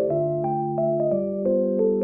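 Soft background music: a gentle keyboard melody of mallet-like notes over sustained chords.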